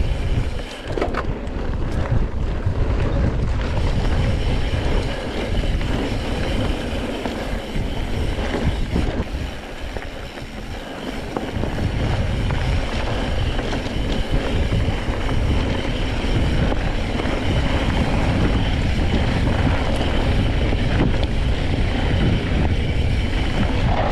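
Wind buffeting the microphone over the steady rumble of a mountain bike rolling down dirt singletrack, easing briefly about ten seconds in.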